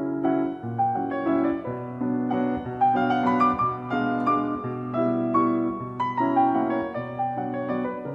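Background piano music: a gentle melody over a steady bass line.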